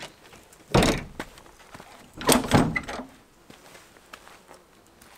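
A pickup tailgate drops open and stops with a heavy thunk about a second in. About a second and a half later comes a cluster of clunks and rattles as the aluminium canopy's rear door is unlatched and swung open.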